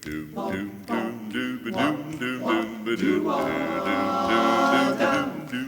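Barbershop chorus singing a cappella in close harmony: short rhythmic sung syllables without clear words, then a chord held for about two seconds.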